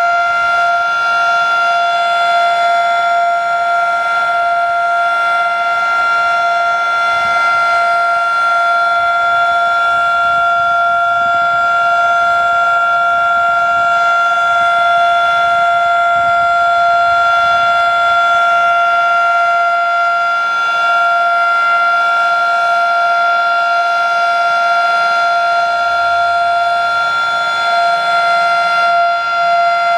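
Federal Sign and Signal Model 3 mechanical civil defense siren sounding during a siren test, holding one steady, loud pitch with a stack of overtones.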